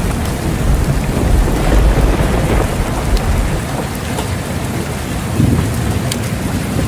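Steady heavy rain with rolling thunder: a low rumble strongest over the first few seconds that fades, then swells again near the end, with scattered sharp drop ticks over the hiss of the rain.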